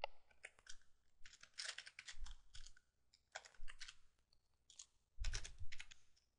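Computer keyboard being typed on, in several short bursts of keystrokes with brief pauses between them.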